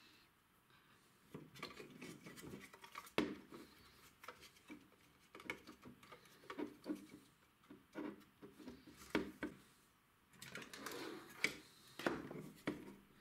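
Handling noise of rubber button keypads being pressed into a plastic instrument front panel: soft rubbing and irregular light clicks and taps, with a few sharper plastic clicks. Near the end a circuit board is handled against the panel.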